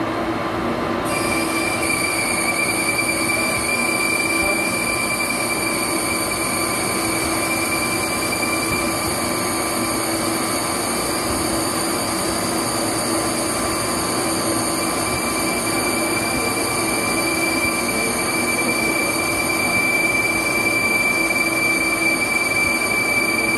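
Metal lathe running with its cutting tool turning a workpiece: a steady machine noise with high-pitched squealing tones that set in about a second in and hold steady.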